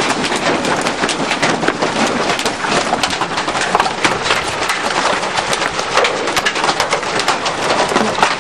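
Large hail striking a roof in a dense, unbroken clatter of many hard hits, loud enough to sound like thunder on the roof.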